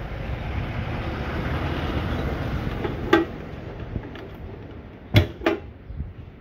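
Metal case of an inverter stick welder knocking against a workbench as it is lifted and turned: one sharp knock about three seconds in, then two more close together near the end. A steady low rumble sounds until about the first knock, then drops away.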